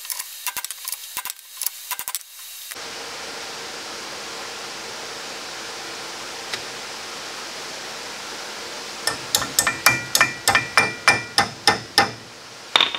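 Metal clicks and rattles for the first couple of seconds as a tool is fitted to the hub nut, then a steady faint hiss. In the last few seconds comes a quick run of about a dozen ringing hammer taps on metal, roughly three a second, backing the front spindle nut off slightly to line up the cotter pin hole.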